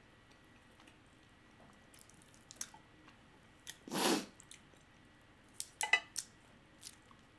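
Quiet close-up eating sounds: a few small clicks of chopsticks working a plate of fire noodles, with faint chewing. About four seconds in comes one short rushing noise, the loudest sound.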